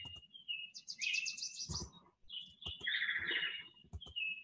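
Small birds chirping and twittering: high whistled notes, a fast trill about a second in, and a buzzy call around three seconds in.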